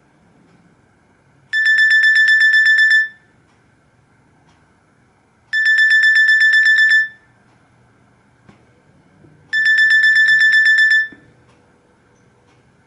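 Nokia Asha 302 ringtone: a high electronic tone pulsing rapidly, about eight pulses a second, in three bursts of about a second and a half, one every four seconds.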